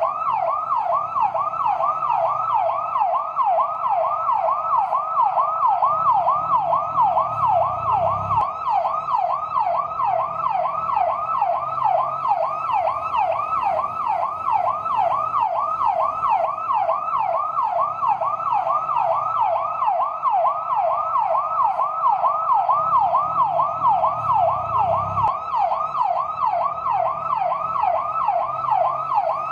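Fire truck yelp siren wailing in rapid, evenly repeating up-and-down sweeps. A low rumble swells under it twice and cuts off abruptly each time.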